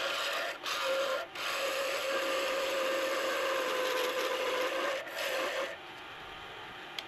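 Turning tool cutting a spinning purpleheart pen blank on a wood lathe, played back at double speed: a loud, dense scraping with a steady tone under it. The cut breaks off for a moment twice, then stops near the end, leaving a quieter hum.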